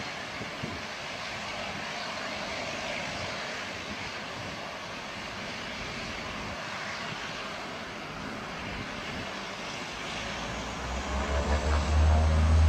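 Bombardier Dash 8-300 with two Pratt & Whitney Canada PW123 turboprops running as it rolls along the runway, a steady rushing engine and propeller noise. About ten seconds in, a deep pulsing drone swells in and grows much louder.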